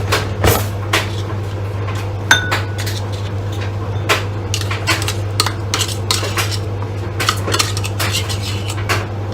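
Dishes, pans and cutlery being handled: irregular clinks and clatters, the sharpest about two seconds in, over a steady low hum.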